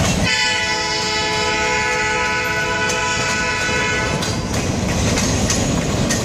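Freight train's boxcars rolling past with steady wheel rumble and clatter on the rails. A locomotive horn sounds one long, steady blast of about four seconds, starting just after the beginning.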